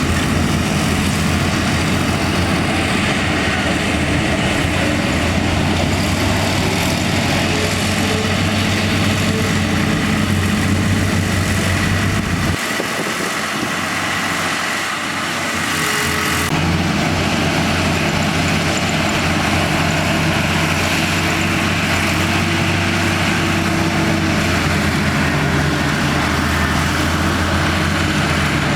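Heavy diesel engine of construction machinery running steadily with a low drone. About halfway through, the deep engine note drops away for a few seconds, then returns.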